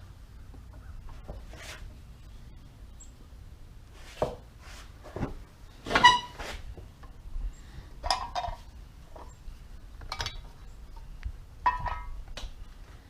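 Bottles and cans being handled and set down on a workbench: a scattering of knocks and clinks, the loudest a ringing clink about six seconds in.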